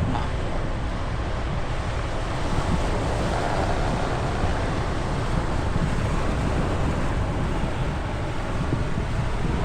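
Steady wind rumbling on the microphone, with surf washing on a beach beneath it.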